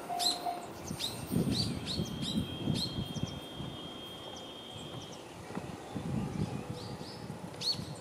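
A railway level-crossing warning bell gives its last electronic ding and stops about half a second in, as the crossing clears after a train. Birds chirp with repeated short, sharp calls, and a low rumble comes and goes.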